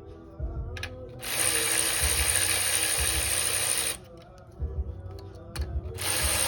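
Hand ratchet wrench clicking as bolts on an LS4 V8 engine are worked during teardown, in two spells with a short pause and a few separate clicks between them.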